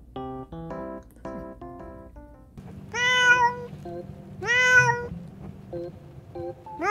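Domestic cat meowing loudly from inside a pet carrier: two long, drawn-out meows about a second and a half apart, with a third starting at the end. These are the distressed cries of a cat being taken to the vet. Soft piano music plays before the meows and faintly between them.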